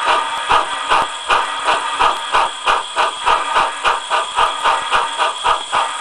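A steam locomotive's exhaust chuffing, played by a Tsunami sound decoder through a small 20 x 35 mm oval speaker in a sealed enclosure: a steady beat of about three chuffs a second over a continuous hiss.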